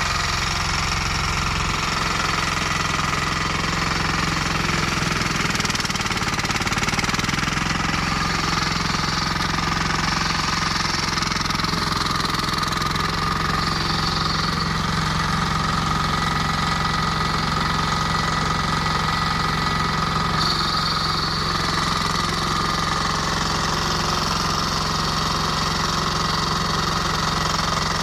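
Flail mower's 18 hp diesel engine running steadily.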